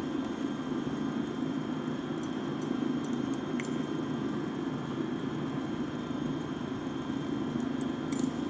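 Cessna's piston engine running steadily at low taxi power, with a few faint, light ticks.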